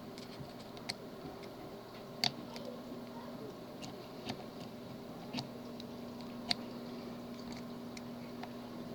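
Tubular lock being picked with a tubular lock pick: small sharp clicks at irregular intervals, about one a second, as the pins are worked.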